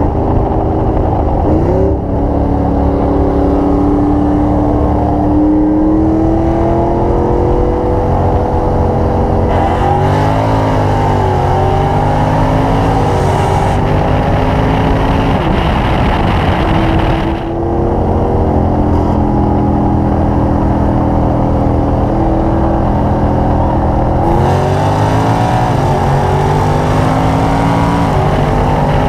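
Car engine pulling hard at wide-open throttle. Its pitch climbs steadily through each gear and drops sharply at each upshift, four times.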